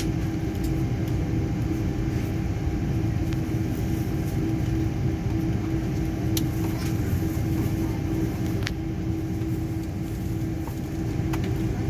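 Cabin noise of an airliner waiting on the ground: a steady low rumble with a constant hum from the aircraft's air and power systems, and a couple of faint clicks.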